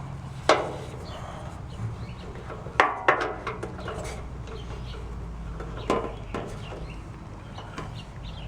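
Sharp metallic clinks and knocks, about five of them, each ringing briefly, from a screwdriver and screws against the sheet-metal panels of a barbecue grill being assembled.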